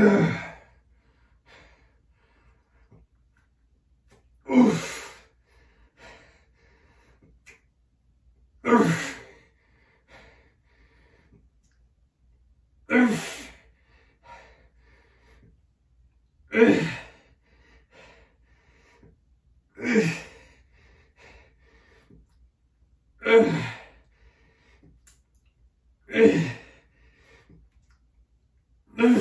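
A man's forceful exhalations, one sharp breath out about every three to four seconds, timed with each repetition of a slow resistance-band drag curl under load.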